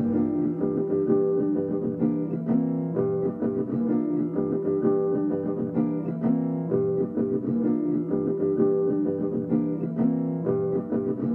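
Background music: a plucked guitar playing a repeating figure over held low notes.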